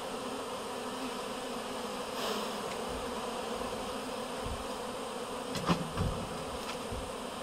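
Honeybee colony buzzing steadily from an opened hive, a constant hum. A couple of light knocks come about six seconds in.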